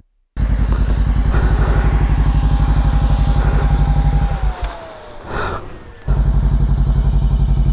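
Motorcycle engine idling with a steady low throb. Its sound drops away for a couple of seconds a little past the middle, with a short scuffle of noise, then returns.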